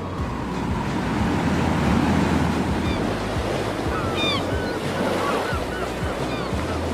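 Ambient sound effect of waves washing, swelling about two seconds in, with a few short high chirps in the middle.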